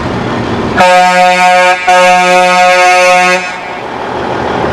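A vehicle horn sounds two loud, long blasts of one steady pitch, the first about a second long and the second about a second and a half, with a brief break between them.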